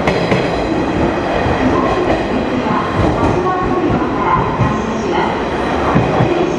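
A JR West 103 series commuter electric train pulling out of the station and moving away, its wheels and running gear making a steady, loud rumble on the rails.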